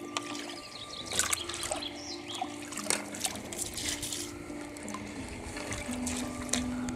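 A shallow forest brook trickling and gurgling, with scattered small splashes. A simple melody of held notes plays underneath.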